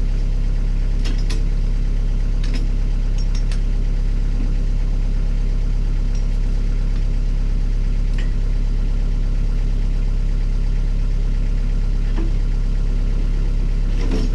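Tractor diesel-type engine idling steadily at low speed, with a few faint light clicks over it.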